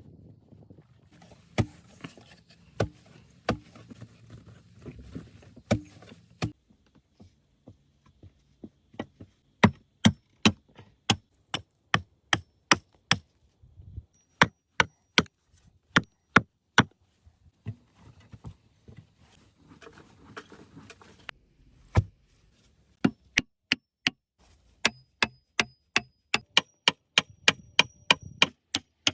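Wood being chopped: a long run of sharp, even strikes, about two or three a second, some with a faint high metallic ring. The chopping is preceded by rustling and a few scattered knocks.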